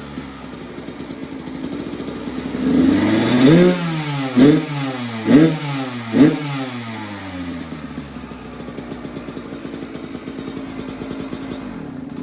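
2021 Kawasaki KX85's 85cc two-stroke single running cold on choke through its stock exhaust. The revs fall back at the start, it is revved once about three seconds in, blipped three times in quick succession, then settles to a steady idle.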